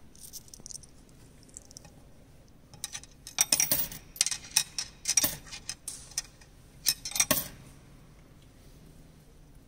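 Light metallic clicks and clinks in quick clusters for about four seconds, starting about three seconds in: small metal objects handled at a church tealight stand, the aluminium tealight cups and the metal coin box with its slot.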